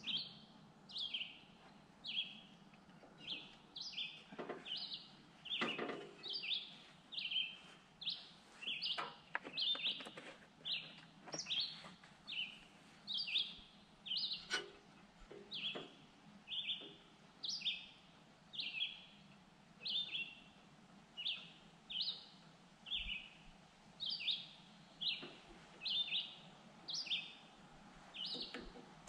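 A bird chirping over and over: short, downward-sliding chirps at an even pace of about one and a half a second, with a few faint knocks now and then.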